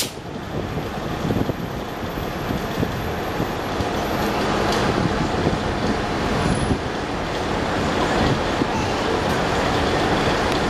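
NABI 40-SFW transit bus idling at a stop with the door open, a steady engine rumble mixed with street traffic noise.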